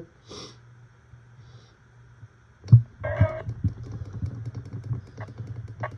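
Button clicks on a Jensen JEP-750 weather radio, with one sharp click nearly three seconds in. After it the radio's speaker comes on, playing a broadcast station, with more clicks over it.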